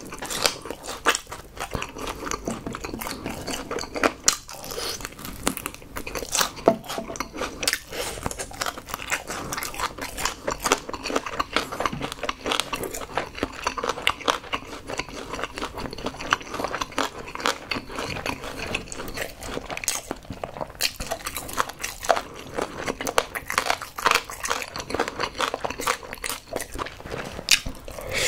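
Close-miked chewing of crispy honey-glazed fried chicken: a steady run of crunching and crackling from the coating, bite after bite.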